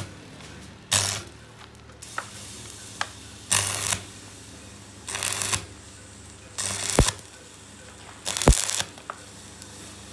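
Stick (arc) welder tacking a steel handle bracket onto a pressure cooker body: five short bursts of electrode arc crackle, each about half a second, roughly every second and a half, over a low steady welder hum.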